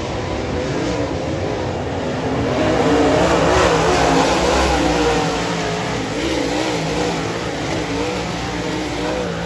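Dirt late model race cars' V8 engines racing past, the engine notes rising and falling as the drivers lift and get back on the throttle. Loudest a few seconds in as the cars pass close by.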